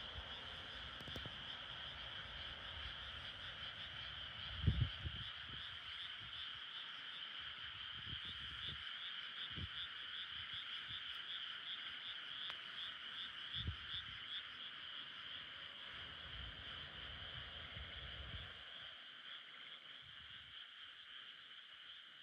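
Steady night chorus of frogs and insects, a high pulsing trill over a lower, denser chorus. A few short low thumps break in, the loudest about five seconds in.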